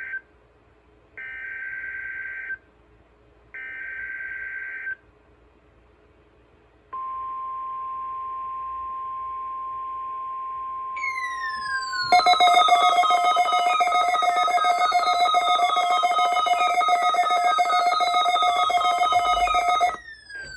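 NOAA Weather Radio SAME alert header: the last of three short data-burst screeches, each about a second long, then after a pause the steady 1050 Hz weather-radio warning tone. Some five seconds into the tone a louder alert from a receiving device joins in: a buzzy mix of steady tones with repeated falling sweeps. It lasts about eight seconds and then cuts off suddenly.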